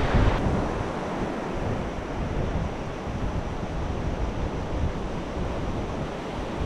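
Surf washing onto a sandy beach, a steady rush of breaking waves, with wind buffeting the microphone in low gusty rumbles.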